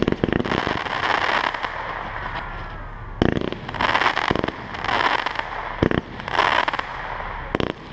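Fireworks display with mines and low shells firing from the ground and bursting overhead. Sharp bangs come a second or so apart, with a loud noisy rush of bursting stars between them.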